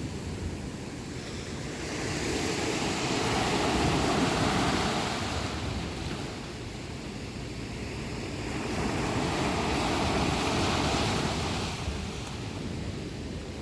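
Sea waves breaking and washing up on the shore: a continuous rush of surf that swells twice, about six seconds apart.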